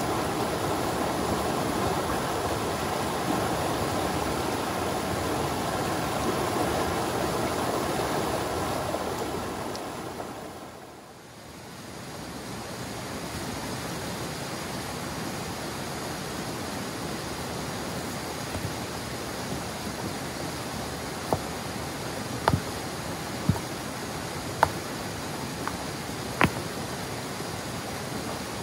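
Steady rushing of a flowing stream, louder at first, dipping briefly about ten seconds in and then going on a little quieter, with a few sharp clicks or knocks in the last several seconds.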